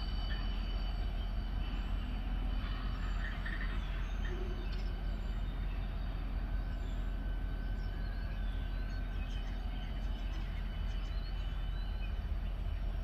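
Long CSX mixed freight train rolling slowly past, a steady low rumble with a few thin, steady high tones over it.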